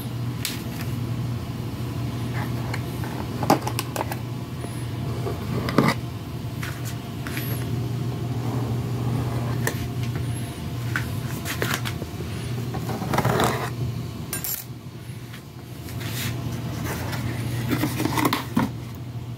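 Hands opening a duct-taped cardboard box among tissue paper: rustling, crinkling, taps and scrapes of cardboard and paper, with a few louder handling noises. A steady low hum runs underneath.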